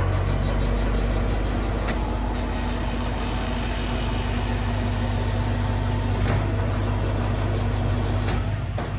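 Enclosed car-transporter truck running with a steady low mechanical hum, which gets louder right at the start and then holds level.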